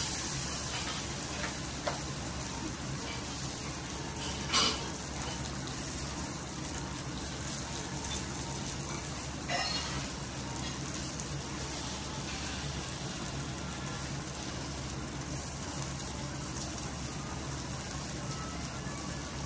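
Beef steaks sizzling on a flat steel teppanyaki griddle, a steady frying hiss. A few sharp metal clinks come from the chef's knife and fork on the hot plate, the loudest about four and a half seconds in.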